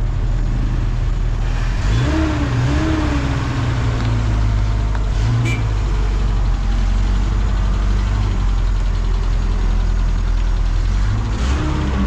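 Motor vehicle engine running, a steady low drone whose pitch shifts about two seconds in and again near the end.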